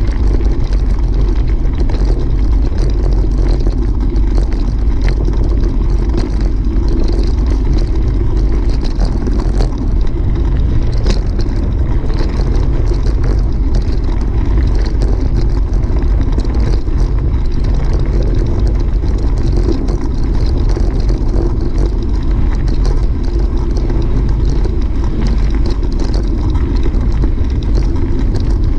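Steady wind buffeting on the microphone of a camera moving along a gravel road, with tyres crackling over loose gravel throughout.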